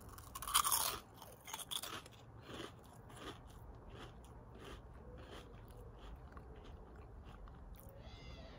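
Pom-Bär bear-shaped potato snacks being bitten and chewed close to the microphone. A loud crisp crunch comes about half a second in, then a few smaller crunches, then softer chewing crunches that fade.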